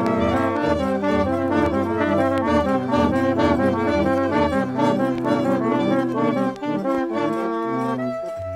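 Banda horn ensemble playing polyphony: many horns each sounding its own held note, the notes interlocking in a repeating pattern over deep low horn notes. The playing thins out near the end.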